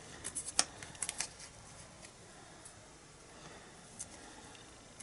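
Paper and cardstock being handled on a craft desk: a few quick rustles and clicks in the first second or so, then a single tick about four seconds in.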